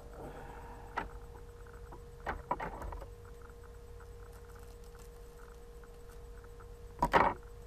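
Small plastic blind-bag packet being handled and opened by hand: a faint click, a brief cluster of rustles, then a louder crinkle near the end, over a steady electrical hum.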